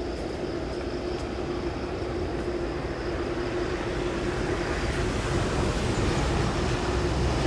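Boeing 787-9 jet engines running at the runway threshold: a steady rumble with a faint whine, growing gradually louder as thrust builds for the takeoff roll.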